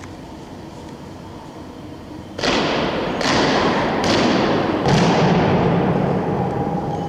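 Ceremonial marching steps of an honour guard: boots struck hard on a stone floor, four heavy stamps about a second apart starting a little over two seconds in. Each stamp echoes on in a large hall.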